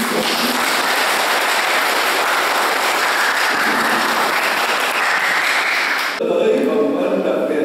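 Wedding congregation applauding, a dense clapping that starts suddenly and cuts off abruptly about six seconds in, after which a voice resumes.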